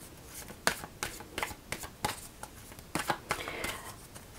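A Goddess Oracle card deck being shuffled by hand, the cards slapping together in a string of quick, irregular clicks, a few each second.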